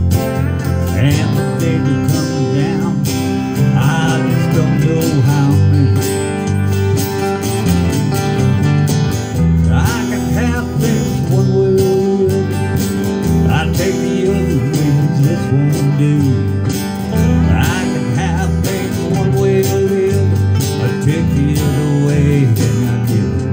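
Acoustic guitar strummed and picked in a country-style instrumental passage.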